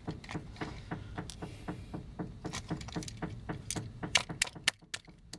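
Rapid, irregular small clicks and light rattling of a toy robot's plastic and die-cast metal parts being handled and worked apart.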